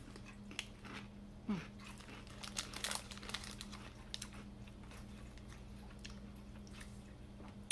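Crunching and chewing of small mango-filled butter crackers, irregular crisp crunches most frequent in the first three seconds and sparser after.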